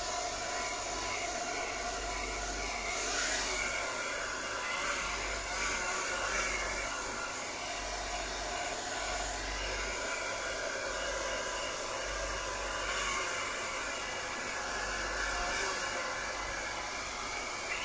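Handheld hair dryer running steadily, blowing at close range.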